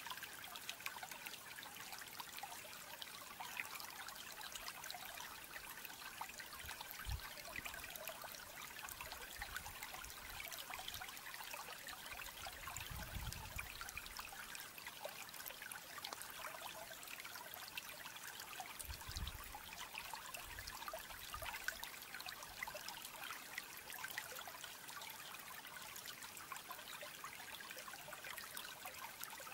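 Steady trickling of running water, heard as an even speckled hiss, with a few soft low thuds about 7, 13 and 19 seconds in.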